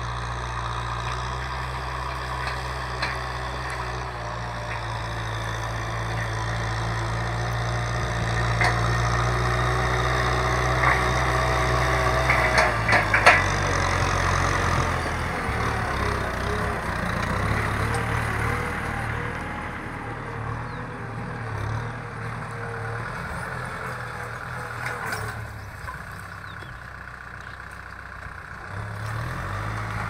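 Kubota M6040 SU tractor's four-cylinder diesel engine running steadily under load as it pulls a disc plough through dry field soil. It grows louder toward the middle as the tractor comes close, with a few sharp clanks about halfway through, then fades.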